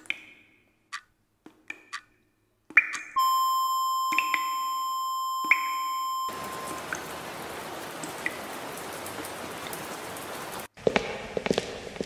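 A few sharp wooden knocks of chess pieces being set down on a board, then a steady electronic beep for about three seconds with two more knocks over it. The beep gives way to an even hiss like rain, which stops short near the end and is followed by a run of crackling clicks.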